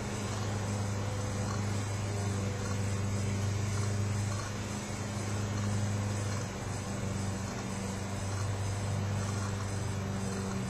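A steady machine hum with a constant low drone and background noise, unchanging throughout.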